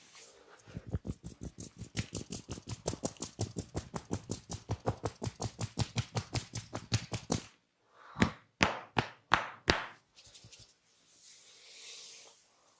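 Percussive hand massage: a fast, even run of chopping hand strikes, about seven a second, for several seconds, then a pause and five louder, sharper hand slaps about a third of a second apart. A soft brushing hiss follows near the end.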